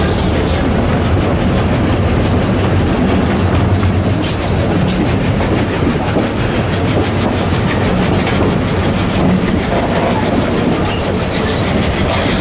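Narrow-gauge passenger train running on the track, heard from aboard a carriage: a steady, loud rumble of wheels on rail with clicking over the joints and some wheel squeal as the train rounds a curve.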